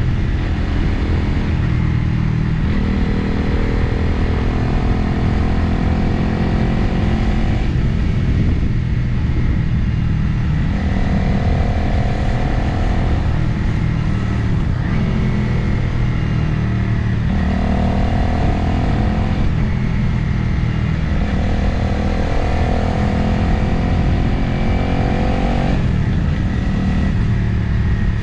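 Motorcycle engine running on the move, its note rising and falling several times as the rider opens and closes the throttle, with wind rushing over the microphone throughout.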